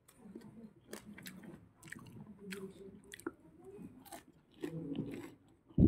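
Close-up chewing of crispy deep-fried frog, with irregular sharp crackles of the crunchy coating between the teeth. A dull thump sounds right at the end.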